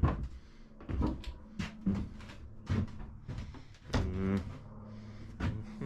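Footsteps knocking on a boat's wooden cabin floor, about eight irregular thumps while walking, with a short hummed 'hmm' about four seconds in, over a faint steady low hum.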